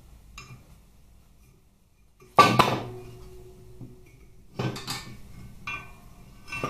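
A Harley Twin Cam aluminium crankcase half knocking against the steel bed and blocks of a hydraulic press as it is set down and turned: two loud metallic clunks about two seconds apart, the first ringing briefly, then lighter clinks near the end.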